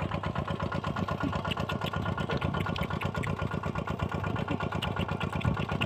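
A small engine running steadily, its firing an even, rapid pulse, driving the water pump that drains the field.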